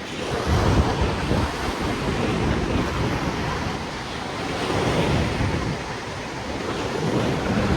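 Sea surf breaking on the beach, with wind buffeting the microphone; the rushing swells and eases every few seconds.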